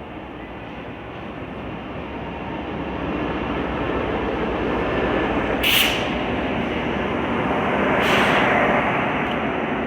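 Diesel-hauled passenger train running past, its rumble growing steadily louder, with two short hissing bursts: one about halfway through and a longer one near the end.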